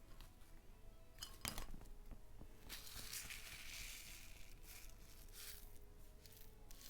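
Faint handling sounds of slime being mixed: a single clink about a second and a half in, then a soft rustling, crackling hiss and scattered small crackles.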